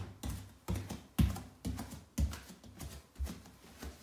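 A run of sharp knocks or thumps, about two a second, each a dull thud with a short click.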